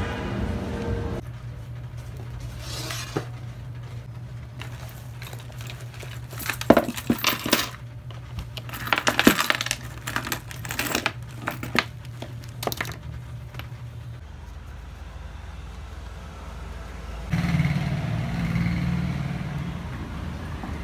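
Small hard objects clinking and rattling onto a desk as a cloth tote bag is emptied: a run of sharp clicks and clinks over several seconds, over a steady low hum.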